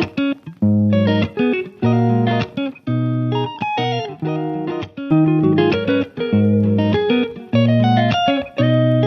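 Background music: plucked guitar playing a repeating pattern of notes over a steady bass line.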